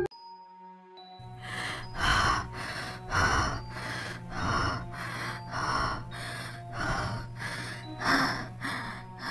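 Heavy, rapid panting of a person running, about one and a half breaths a second, starting about a second in, over a low sustained music drone.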